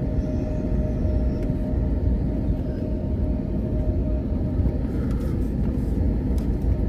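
Airliner cabin noise while taxiing after landing: a steady low rumble of the engines and the wheels rolling over the taxiway. A faint steady hum over it stops about four seconds in.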